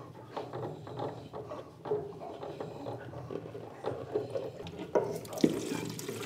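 Diesel trickling and splashing into a plastic container as a spin-on fuel filter is unscrewed and lifted off, with small knocks and clicks of the canister and container being handled. The sharpest knock comes about five and a half seconds in.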